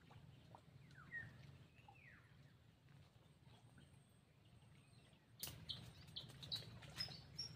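Faint bird chirps over a low, steady background hum. From about five seconds in, a louder run of short, high-pitched chirps, with a few sharp clicks among them.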